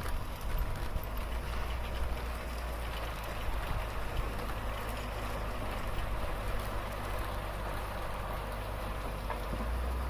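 Grimme potato harvester and tractors running steadily, with a continuous rain-like patter of potatoes and soil tumbling off the elevator through the hopper into a wooden bulk box, over a constant low engine rumble.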